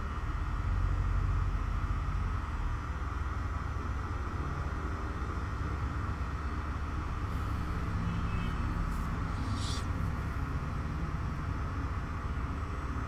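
Steady low background rumble, with one short high-pitched scrape about nine and a half seconds in.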